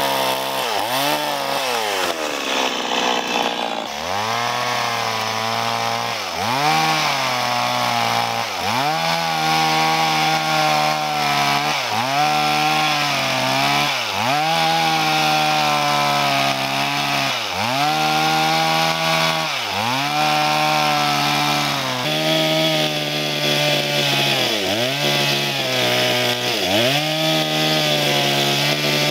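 Stihl chainsaw cutting through a log, its engine pitch dipping and recovering about every two seconds as the chain works through the wood. In the first few seconds the engine drops toward a low idle before revving back up.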